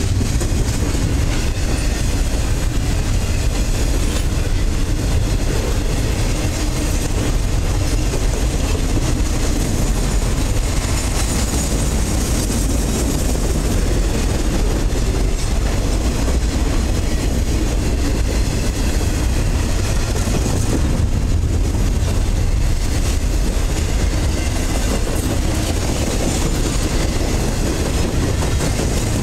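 Freight cars of a container train (flatcars and well cars loaded with military containers) rolling past at speed close by: a steady, loud rush of steel wheels on rail.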